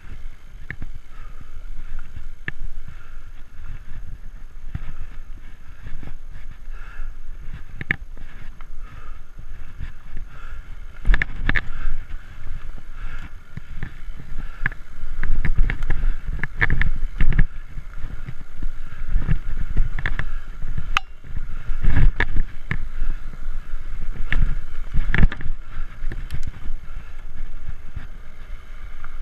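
Framed Alaskan fat-tire mountain bike riding a dirt singletrack: steady tyre noise on the trail with frequent knocks as the bike jolts over bumps, heavier and more frequent from about eleven seconds in.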